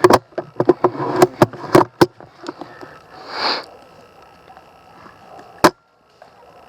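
A quick irregular run of sharp cracks and clicks over rustling and movement in the first two seconds, a short hiss about three and a half seconds in, and one more sharp crack near the end, typical of airsoft guns firing amid players moving through cover.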